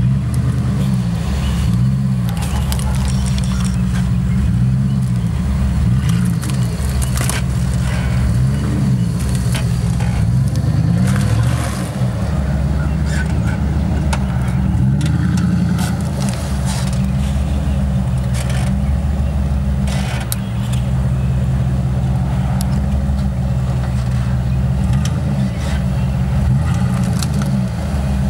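Jeep Grand Cherokee ZJ's engine pulling at low revs as it crawls over logs, the revs rising and falling again and again. Scattered sharp knocks and cracks come through over the engine.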